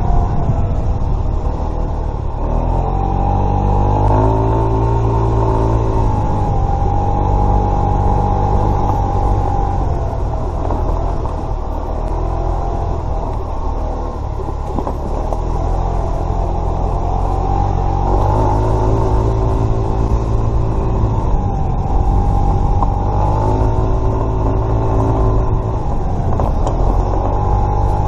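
Kymco Agility 50 moped's 50 cc engine running under way, its note climbing and dropping several times as the throttle is opened and eased, over a steady low rumble.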